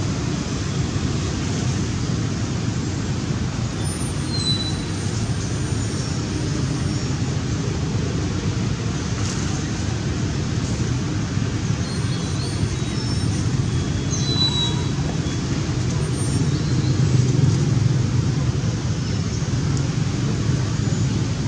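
Steady low rumble of distant road traffic, with a few faint high chirps now and then.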